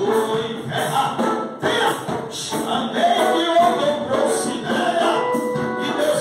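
A man singing loudly into a handheld microphone through a PA, with other voices joining in: gospel-style worship singing.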